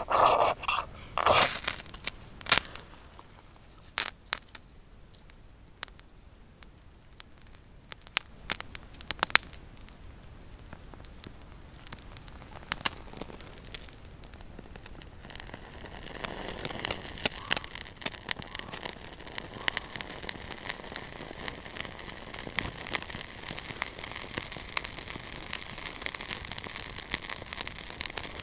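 A ferrocerium rod scraped hard with a steel striker a few times at the start, then scattered sharp snaps. From about halfway, kindling in a split-log stove catches and crackles steadily.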